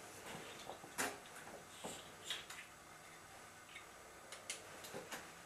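A few faint, scattered clicks and taps, the sharpest about a second in.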